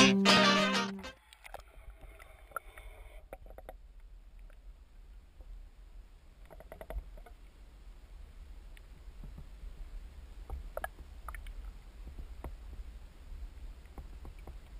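A guitar chord from the intro music dies away about a second in, then the muffled audio of a camera recording underwater: a steady low rumble with scattered faint clicks and ticks.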